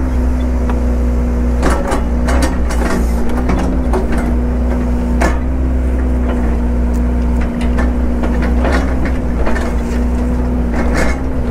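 Heavy-equipment engine running steadily at a constant pitch, with irregular knocks and clunks over it.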